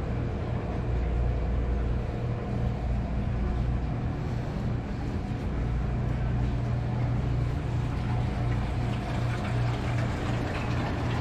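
Steady low hum under an even background noise, with no clear events.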